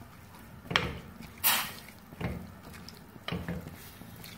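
Wooden spatula stirring a watery mix of raw minced meat, onions, tomatoes and spices in a steel pan: about four wet strokes, roughly one every three-quarters of a second.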